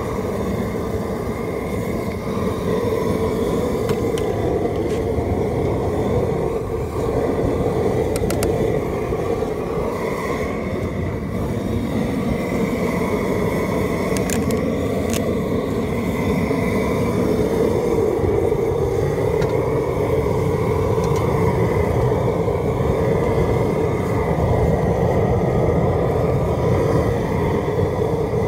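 Steady roar of the propane burner firing under an R&V Works Cajun seafood boiler, with a few light clicks now and then.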